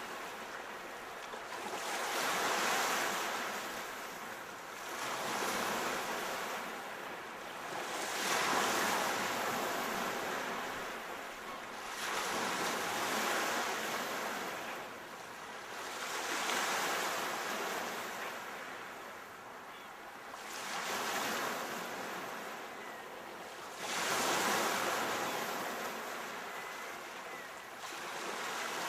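Sea waves washing in, about seven surges in a row, each swelling and fading every three to four seconds.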